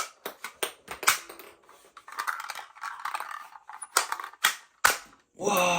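Irregular sharp plastic clicks and clatter from a toy gun being handled, with a short rustle in the middle.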